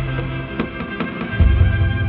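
Electro-acoustic cello processed through effects pedals and samplers, playing layered sustained drone tones over a regular pattern of sharp percussive ticks. A heavy low pulse comes in about one and a half seconds in.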